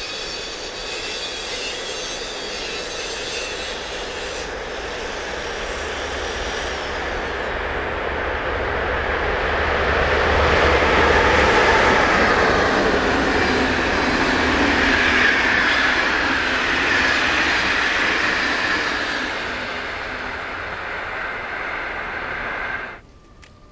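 Electric-hauled passenger train passing at speed: the noise of the wheels on the rails builds as the locomotive approaches, is loudest as it and the coaches go by about halfway through, then eases off. The sound cuts off abruptly near the end.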